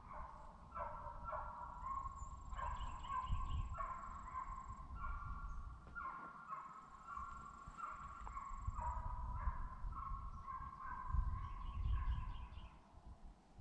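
A pack of deer hounds baying on a deer's trail: many overlapping, drawn-out cries one after another throughout, over a gusty low rumble.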